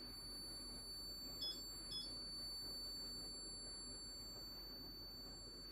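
Quiet room tone with a faint, steady, high-pitched electronic whine, and two short high beeps about half a second apart, around a second and a half in.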